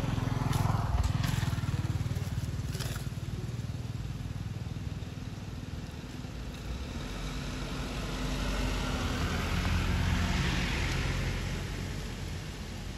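A motor vehicle engine running past, its low hum swelling near the start and again about ten seconds in. A few sharp clicks sound in the first three seconds.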